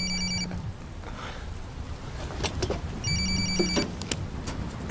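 Mobile phone ringing twice, about three seconds apart. Each ring is a short burst of high trilling tones with a low buzz under it.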